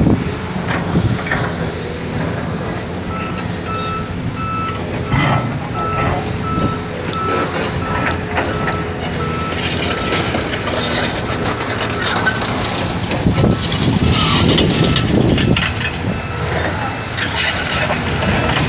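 Heavy diesel earthmoving machinery running, with a reversing alarm giving a steady series of short beeps from about three seconds in.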